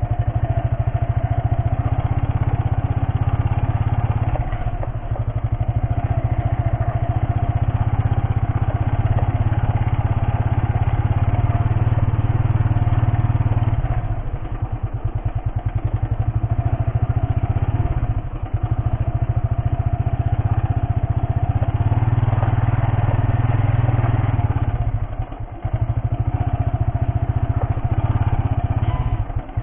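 Motorcycle engine running steadily at low speed, with the throttle eased off briefly three times.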